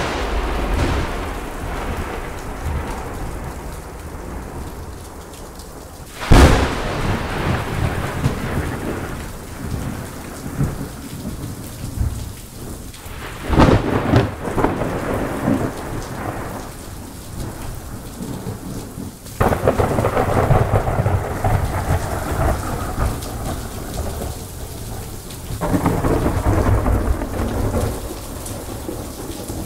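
Thunderstorm with steady rain: a sharp thunderclap about six seconds in and another about fourteen seconds in, each trailing off into long rolling rumbles, then further rumbling stretches after about twenty and twenty-six seconds, echoing off canyon walls.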